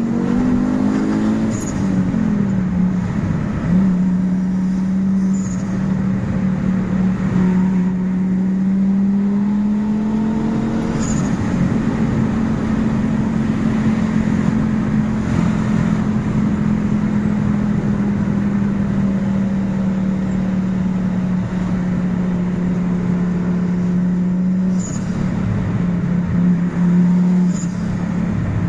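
Fiat Marea 2.0 20V turbocharged five-cylinder engine, tuned to run on ethanol, pulling the car along. Its note rises and falls in the first two seconds, then holds fairly steady, climbing slowly for several seconds and dropping briefly near the end.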